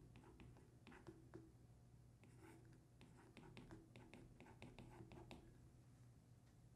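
Faint taps and scratches of a stylus writing on a tablet screen: a run of small, quick clicks from about one to five and a half seconds in.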